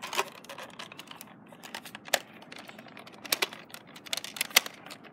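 Irregular plastic clicks and rattles of a Nerf blaster being handled and loaded by hand, with a few sharper snaps.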